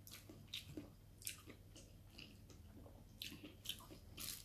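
Faint, close-up chewing of food with soft wet mouth smacks and clicks, a few each second.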